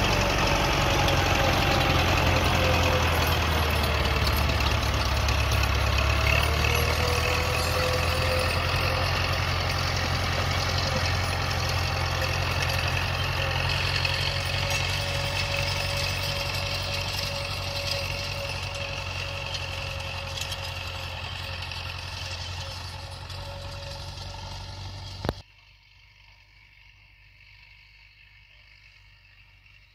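Tractor diesel engine running steadily while pulling a seed drill during sowing, slowly fading as it moves away. About 25 seconds in the sound cuts off suddenly to a quiet background.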